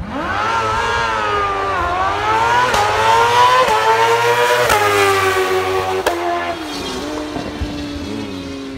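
Drag-racing motorcycle launching hard from the start line. The engine note climbs and drops back with each of several quick upshifts, then falls lower and fades as the bike runs off down the strip.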